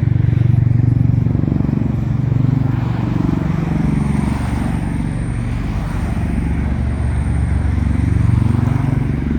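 V-22 Osprey tiltrotor aircraft flying over: a loud, deep, steady rotor drone that swells slightly, with a faint high whine for a few seconds in the middle.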